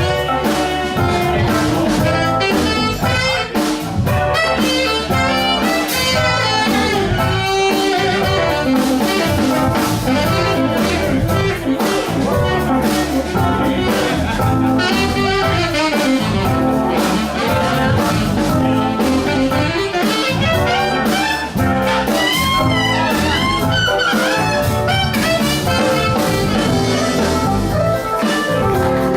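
Live blues band playing an instrumental break without vocals, a saxophone taking the lead over drums, bass and keyboards.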